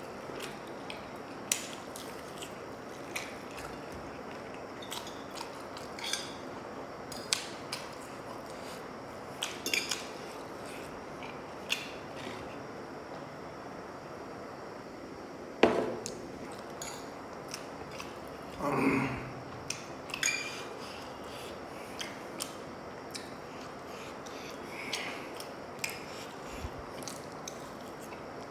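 Close-miked mukbang eating: a metal fork clinking and scraping on a ceramic plate of spicy noodles, with chewing and scattered small clicks. About 16 s in comes one louder knock, and soon after a short breathy vocal sound.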